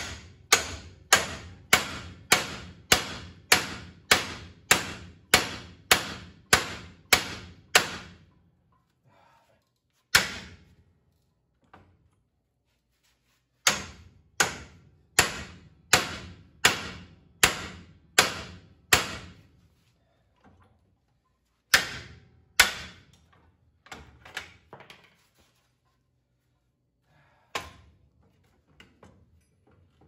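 Hammer blows on a long steel punch driven against the old front spindle of a 1970 Chevy C10, beating the stuck lower ball joint loose: sharp metal-on-metal strikes, about two a second for some eight seconds, a single blow, a second run of about ten, then a few scattered hits.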